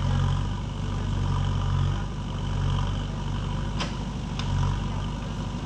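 JCB excavator's diesel engine running, its low rumble swelling and easing every second or two as it works. Two short sharp clicks a little over halfway through.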